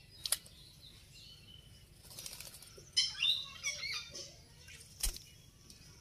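Indian ringneck parrot bathing in a water bowl: a burst of rapid wing flapping and splashing about two seconds in, followed by a few short chirping calls. Sharp knocks come just after the start and about five seconds in.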